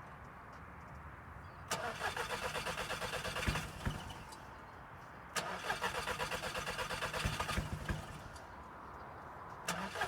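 VW Scirocco engine cranking on its starter in three separate attempts of about two seconds each, a rapid pulsing churn that never catches: the car cranks but won't start.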